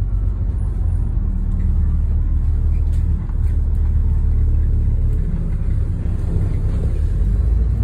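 Stagecoach bus in motion, heard from inside the passenger cabin: a steady low engine and road rumble.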